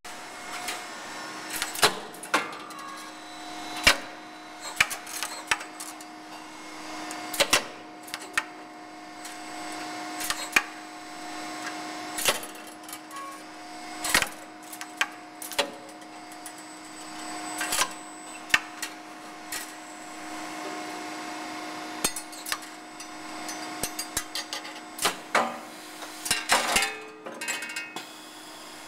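AIM AFM 3D12T CNC wire-bending machine running at slow speed: a steady hum under irregular metallic clanks and knocks as its bending head and clamps work flat steel wire, coming more thickly near the end.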